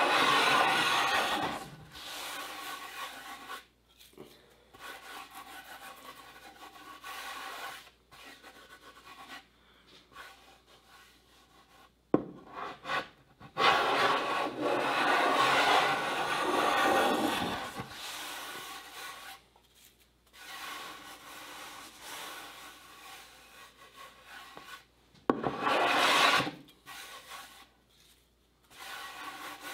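Stanley Bailey No. 4 hand plane cutting across a white oak tabletop, shaving down the ridges where cupped boards were re-glued. A run of planing strokes of uneven length, a few long and loud, others quieter, with two sharp knocks, one about twelve seconds in and one near the end.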